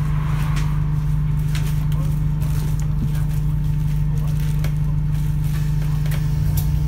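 Alexander Dennis Enviro200 single-deck bus's diesel engine idling steadily at a stop: a constant low hum with a fainter steady higher tone, heard from inside the bus by the open front door.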